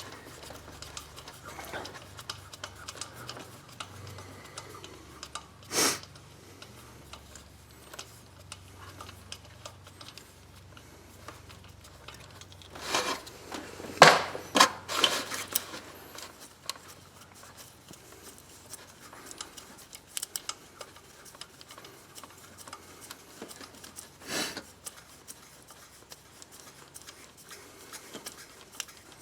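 Scattered small clicks, knocks and rubbing from hand tools and parts being worked in a car's engine bay while the ignition coils are unbolted and pulled. A few louder sharp knocks stand out, the loudest cluster about halfway through.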